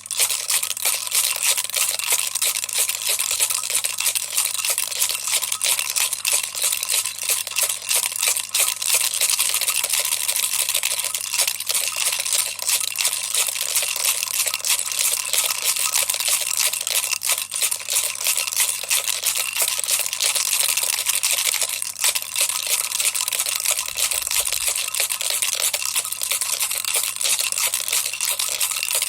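Baby's toy rattle shaken continuously: a dense, steady rattling of small beads or pellets inside, with no pauses.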